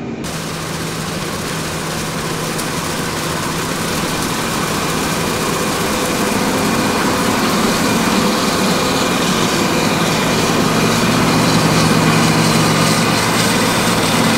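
John Deere 9560 STS combine running at close range, its engine and machinery making a steady drone that grows gradually louder as it comes nearer.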